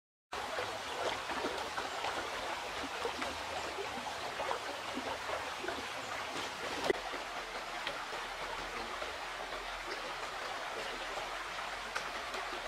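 Shallow river flowing steadily over stones in a riffle, a continuous rushing hiss that cuts in abruptly just after the start, with a few small clicks, the sharpest about seven seconds in.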